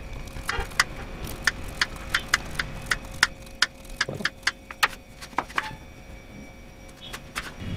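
Knife paring the rind off a small raw jackfruit on a wooden cutting board: sharp, irregular clicks and taps, about two or three a second, thinning out after about five seconds.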